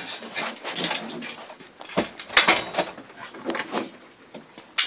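Irregular metallic clinks and knocks of garage door hardware being handled and fitted at the door's side track and bracket, with the sharpest knocks about halfway through and again near the end.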